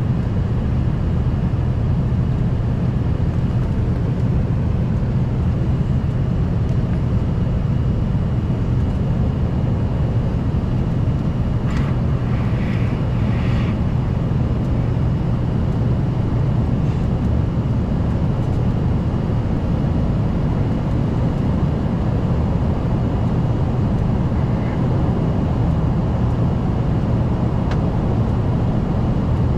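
Steady cabin noise inside an Embraer ERJ-145: the rear-mounted Rolls-Royce AE 3007 turbofans and airflow as a constant low drone with a steady hum, and a brief faint higher sound about twelve seconds in.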